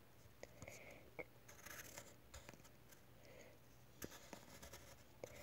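Faint scratching of a pencil lead on paper as lines are sketched, with a few light ticks.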